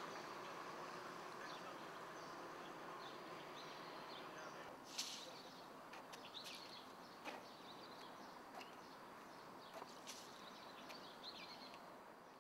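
Faint steady background hiss of ambience, with a few brief high chirps and clicks scattered through it.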